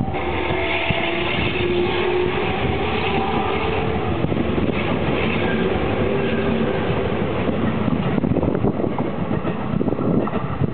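Freight train hauled by an EF66 electric locomotive running along the track: a steady rolling rumble of wheels on rail. Clicks of the wheels over rail joints grow sharper from about eight seconds in as the train comes closer.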